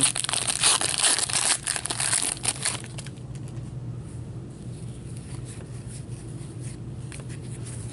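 Shiny wrapper of a hockey card pack crinkling and tearing as it is opened, for about three seconds. After that come only faint scattered ticks as the cards are handled, over a low steady hum.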